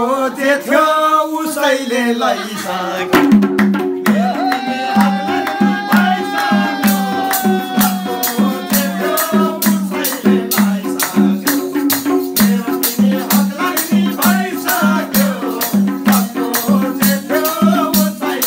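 Live Nepali dohori folk music: a sung line ends in the first couple of seconds, then an instrumental interlude of a steady drum beat with quick, even rattling percussion and a held melody line.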